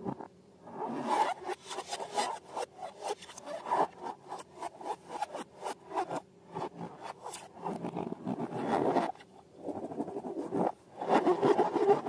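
Slime being handled and mixed: quick, irregular rubbing and scraping strokes with short pauses, busiest near the end.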